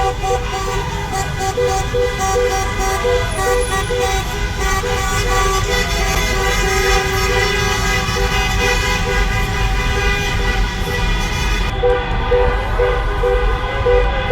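Many car horns honking at once in celebratory traffic: one held steady while others sound in short repeated toots, over the low rumble of the cars.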